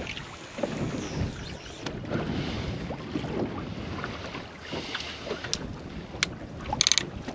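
Wind buffeting the microphone and water lapping against the hull of a small fishing boat, with a few sharp clicks near the end.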